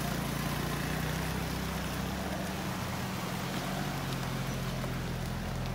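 Car driving: a steady low engine hum with road noise.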